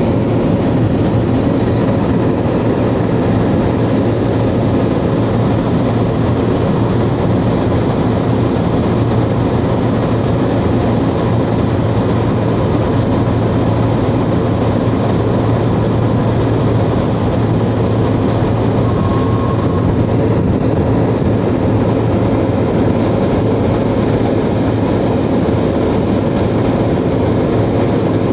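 Steady road and tyre noise with a low drone, heard from inside the cabin of a moving car.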